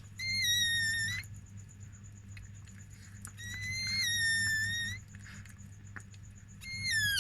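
Newborn chihuahua puppy crying: three high-pitched squealing cries, each about a second long, with a short gap between them.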